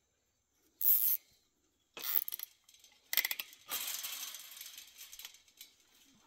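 Black nylon zip tie being pulled tight around chain-link fence posts, its teeth ratcheting through the lock: a short zip about a second in, a few clicks near two seconds, then a longer rasping ratchet from about three seconds to five and a half.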